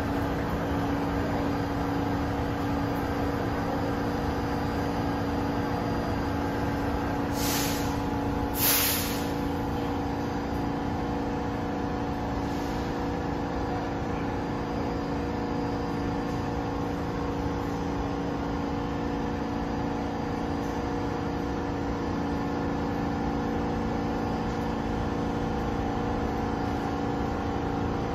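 Subway train running with a steady mechanical hum, with two short hisses about seven and a half and nine seconds in.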